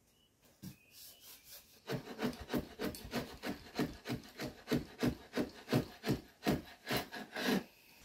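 Wooden window trim being filed down by hand: quick back-and-forth rasping strokes, about three a second, trimming the wood to fit. A few faint taps come before the strokes start.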